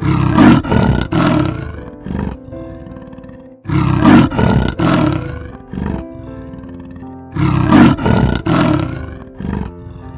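Leopard giving its rasping roar in three bouts a few seconds apart, each a short series of harsh strokes, over background music.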